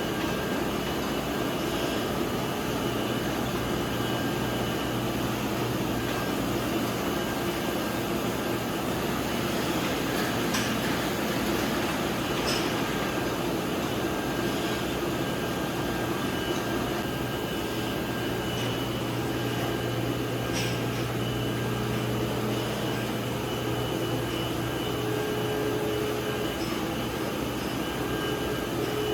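Jam production-line machinery running with a steady hum and whir, with a few light clicks.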